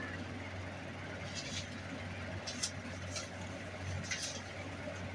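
A few short, soft rustles or scrapes of hand handling at a workbench, over a steady low hum.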